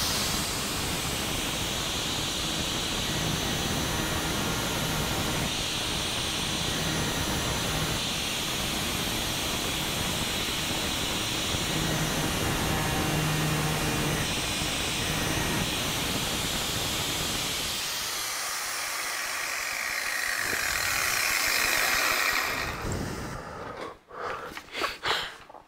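Angle grinder with a thin disc running steadily while it grinds the web-thinning notch into a drill bit's point. This notch shrinks the chisel edge so the bit cuts with less pressure and heat. Near the end the grinder is switched off and winds down with a falling whine, followed by a few handling knocks.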